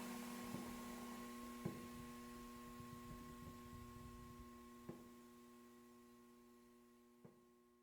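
Low, steady electrical hum of a few fixed tones, the fading tail of a sci-fi door sound effect, dying away slowly. Faint clicks come now and then.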